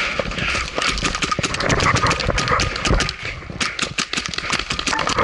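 Paintball markers firing in a rapid, irregular string of sharp pops, several a second, over a rushing hiss of gear and movement.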